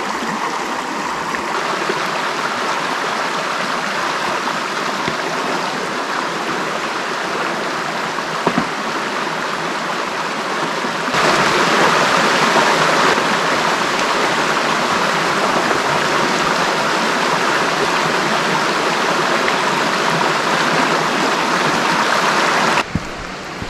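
Shallow river running over rocks, a steady rush of water through small riffles. It gets louder about halfway through and drops back just before the end.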